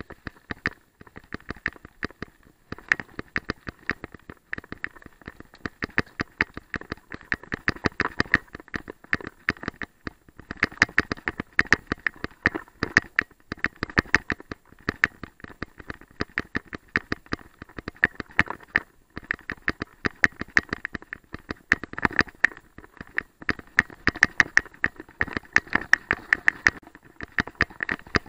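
Mountain bike riding fast over gravel and rough ground: a dense, uneven rattle of clicks and knocks from the bike and its tyres, with a low rumble under it.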